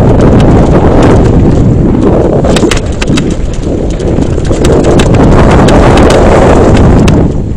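Wind buffeting the microphone of a camera on a mountain bike riding fast down a gravel descent. Through the middle comes a run of sharp clattering knocks as the bike rattles over loose stones and rough ground.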